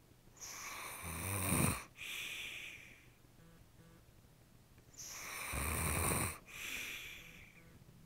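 A man snoring through his open mouth: two snoring breaths in, each growing louder and ending abruptly, and each followed by a breathy exhale.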